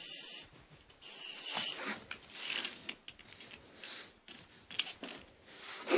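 Faint, irregular rubbing and scraping from handling a small plastic wind-up toy train.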